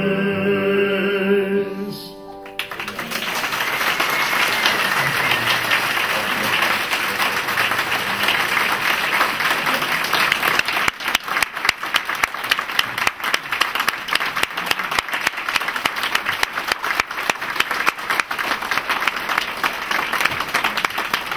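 A group of voices holds the final chord of a hymn, which breaks off about two seconds in. Then a roomful of people applauds, a steady dense patter of clapping that lasts to the end.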